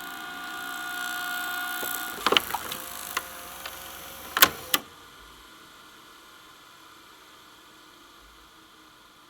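VCR tape mechanism whirring with a steady motor tone, then stopping about two seconds in with a run of mechanical clicks and two loud plastic clacks near the middle. Afterwards only a faint hiss remains.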